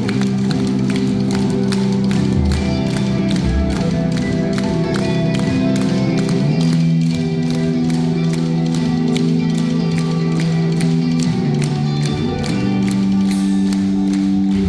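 Live metalcore band playing: sustained guitar chords that change every few seconds over a steady drum beat of about three hits a second.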